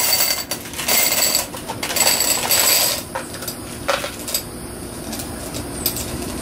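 Clear glass gems poured into a green glass vessel, clattering and chinking against the glass in three bursts over the first three seconds, then a few single clicks as the last ones settle.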